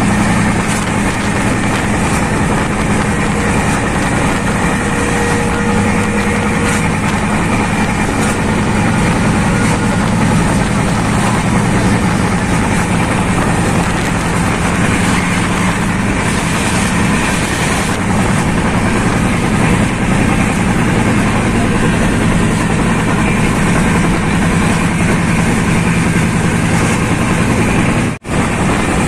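Passenger train running at speed, heard from aboard: a steady loud rumble and rail noise with a low hum underneath. The sound cuts out briefly about a second before the end.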